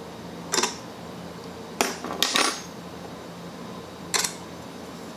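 A socket wrench tightening the ignition coil's mounting bolt on a small lawn mower engine: a few short metallic clicks and clinks, with a cluster of them just past two seconds in.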